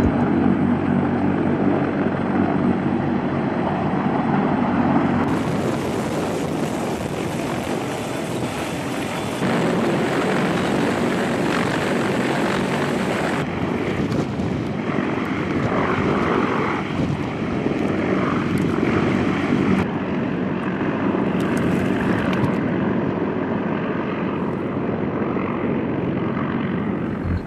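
CH-53E Super Stallion heavy-lift helicopters running loud and steady, rotor and turbine noise as one hovers and lifts away with a vehicle slung underneath. The sound changes suddenly a few times as the footage cuts between shots.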